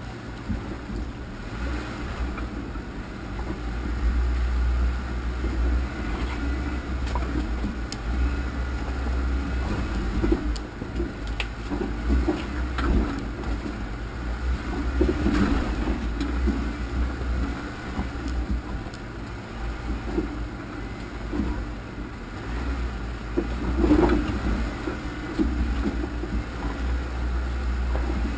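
Off-road vehicle crawling over a rocky trail: a steady low engine drone, with knocks and rattles as it jolts over the rocks, and one louder knock near the end.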